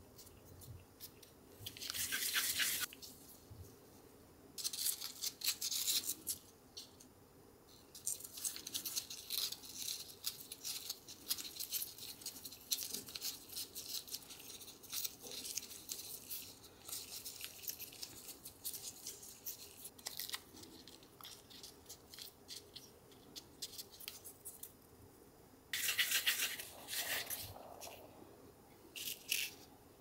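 Gloved hands rolling small cornstarch dough balls between fingers and palms and dusting them in cornstarch powder: soft rubbing and rustling of the gloves, with louder spells of rubbing about two seconds in and again near the end.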